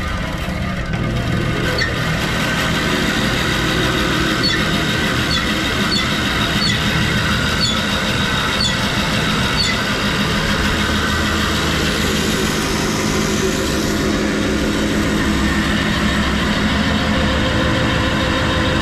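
Delta 28-651 20-inch vertical band saw running at speed, its single-phase motor, belt drive and band wheels giving a steady hum. A faint light tick repeats roughly once a second through the first half.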